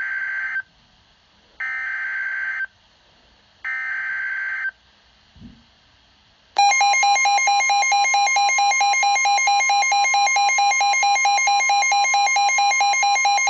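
Emergency Alert System SAME header: three short bursts of buzzy data tones about a second apart, followed about six and a half seconds in by the loud, steady EAS attention tone.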